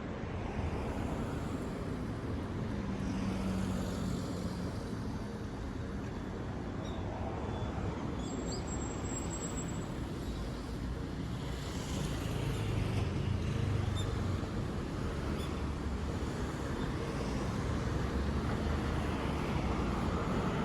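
Steady outdoor vehicle and traffic rumble with a low hum that swells slightly about twelve seconds in.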